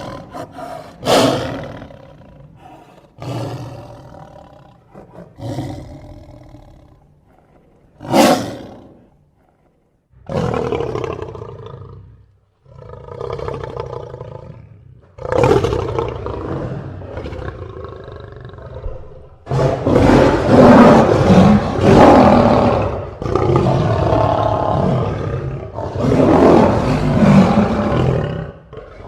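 Lion roaring: a run of separate roars and grunts, two of them short and sharp, then from about two-thirds of the way in a long, almost unbroken stretch of loud roaring.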